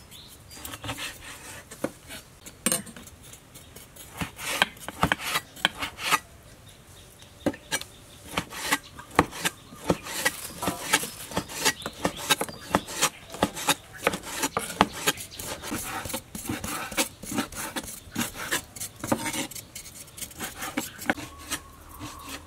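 Cleaver slicing raw meat on a wooden cutting board: quick, irregular knocks of the blade on the board, several a second, sparse at first and dense from about four seconds in, with a knife scraping between the knocks.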